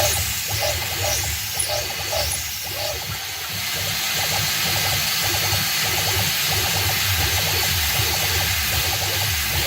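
PM-25 CNC milling machine drilling with a 13/64-inch drill at a 12 IPM plunge: the spindle runs under a hiss of mist coolant. A pulsing sound in the first three seconds or so gives way to a steady hiss.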